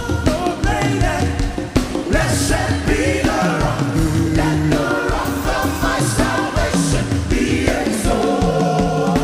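Live gospel worship music: a band playing with voices singing.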